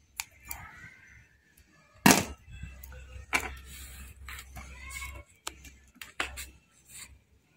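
Handling noises from hands working with scissors, a small white strip and ribbon cables on an opened LED TV's metal chassis: several sharp clicks and snaps, the loudest about two seconds in, with light rustling between them over a low steady hum.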